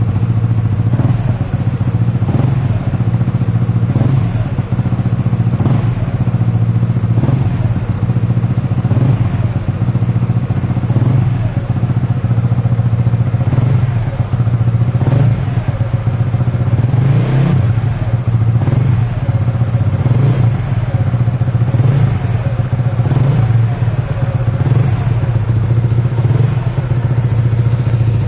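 Honda RS150's 150 cc single-cylinder four-stroke engine idling steadily through an aftermarket SCK Racing 32 mm exhaust, with a light clatter now and then. The engine and ECU are otherwise stock.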